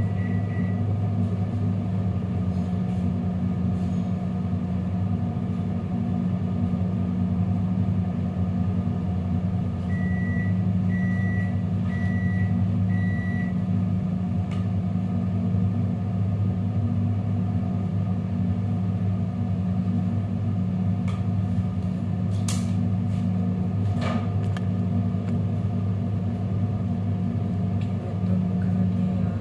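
A steady low mechanical hum from a running motor. About ten seconds in come four short high beeps about a second apart, and a few sharp knocks follow later.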